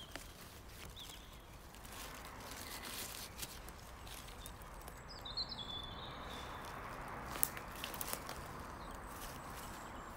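Dry fallen leaves and forest-floor litter rustling and crackling as hands dig around and pull a porcino mushroom out of the ground, then footsteps through the leaves near the end.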